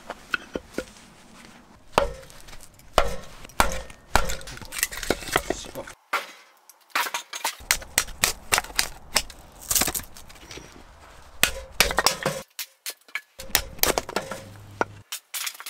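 Split firewood being handled and loaded into a small steel wood stove: a run of sharp wooden knocks and clacks with dull low thuds, pausing briefly twice.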